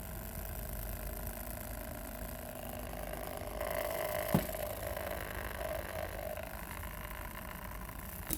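Washing-machine drain pump, freshly repaired, running with a steady hum, its sound smooth as if new. A single sharp click comes about four and a half seconds in.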